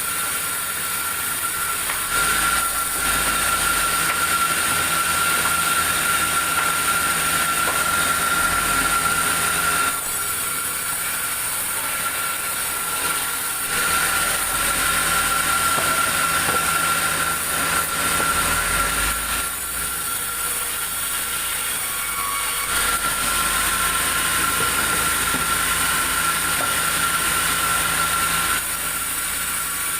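Sawmill saw running with a steady whine and hiss, alternating between louder stretches of about five to eight seconds and shorter, slightly quieter ones.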